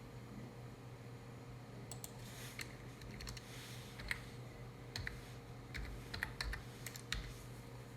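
Faint, irregular clicks and taps, some in quick pairs, over a steady low electrical hum.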